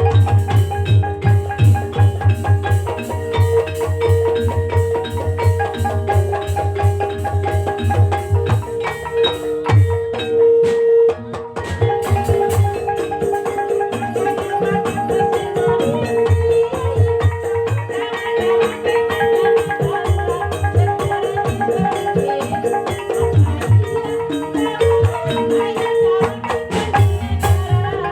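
Banyumas gamelan music accompanying an ebeg horse dance: mallet-struck keyed instruments playing a repeating melody over drum strokes and a pulsing low beat.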